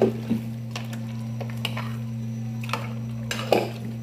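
A metal spoon stirring thick goat stew in an aluminium pressure cooker, with scattered scrapes and clinks against the pot, the loudest at the start and about three and a half seconds in. A steady low hum runs underneath.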